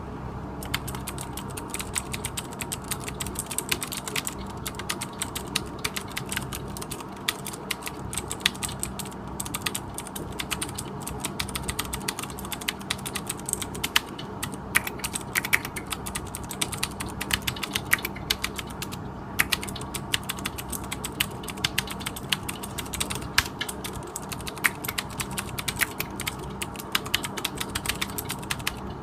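Typing on a Ducky One mechanical keyboard with clicky blue switches: a fast, continuous stream of sharp key clicks with a few brief pauses, over a steady low hum.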